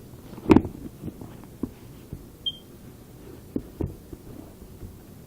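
Handling noise from the sneakers and their box being moved about: one sharp thump about half a second in, then a few lighter knocks and clicks.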